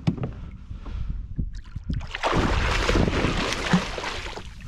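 Water splashing around a kayak over low wind rumble on the microphone, with a few light knocks early on. The splashing turns loud and dense about two seconds in and eases off near the end.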